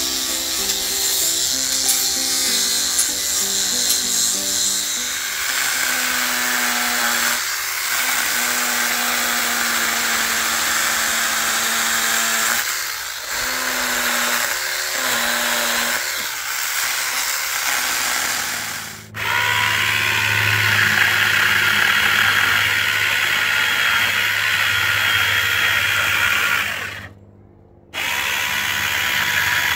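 Background music with a melody for roughly the first two-thirds; then a small handheld electric chainsaw runs steadily, cutting into wood, stops for about a second near the end and starts again.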